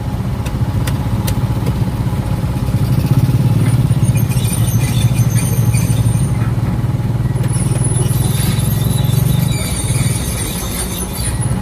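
Komatsu excavator's diesel engine running steadily under load, easing off slightly near the end, with high-pitched squeaks coming and going over the second half.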